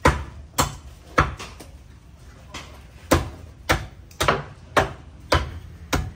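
A large butcher's knife chopping through beef on a cutting table: about ten sharp chops, roughly two a second, with a short pause about two seconds in.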